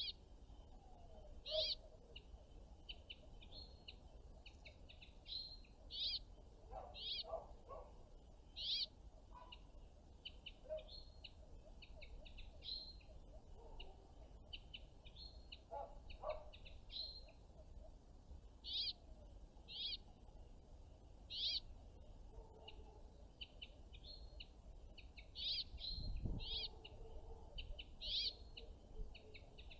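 Small songbirds calling: many short, high chirps, repeated every second or so and sometimes in quick chattering runs. A brief low rumble comes near the end.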